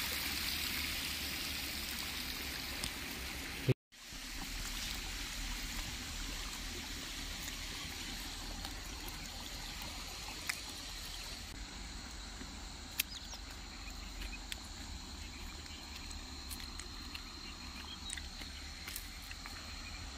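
Water trickling in a thin sheet over the concrete steps of a small dam. It cuts off abruptly a little under four seconds in, followed by a quieter steady outdoor hiss with a thin high insect drone and a few light clicks.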